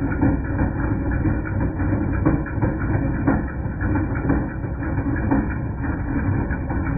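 2010 Jeep Patriot's 2.0-litre four-cylinder engine running with an irregular metallic clanking from the accessory drive, heard slowed down and pitched low in slow-motion playback. The noise was cured by replacing the alternator.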